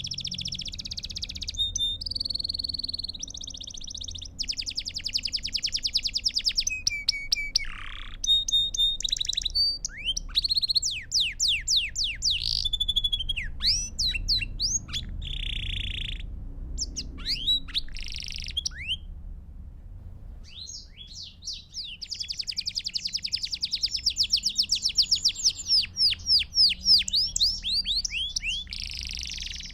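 Belgian canary (domestic canary) singing a continuous song of fast trills, rolls and quick falling sweeps, with a brief pause past the middle before a long rapid trill.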